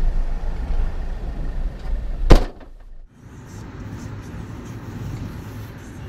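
Low steady rumble inside a vehicle, broken about two seconds in by a single loud bang of a car door slamming shut. After a brief hush a quieter steady hum follows.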